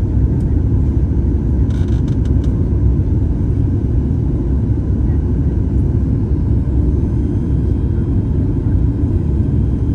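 Steady, loud low rumble inside the cabin of a Boeing 737 airliner: engine and airflow noise carrying through the cabin. A few faint clicks come about two seconds in.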